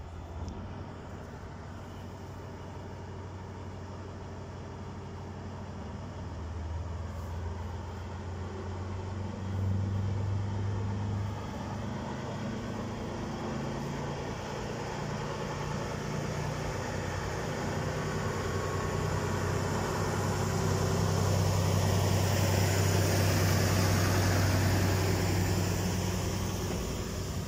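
SM30 diesel shunting locomotive's engine running as it approaches and passes, pulling vintage passenger coaches; it grows steadily louder, with a brief surge about ten seconds in. Near the end the rush of the passing coaches' wheels joins the engine.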